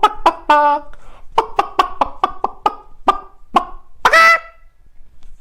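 A man's voice imitating chickens' alarm clucking: rapid clucks at about four a second that slow down. A short held note comes early, and one loud, drawn-out squawk comes near the end.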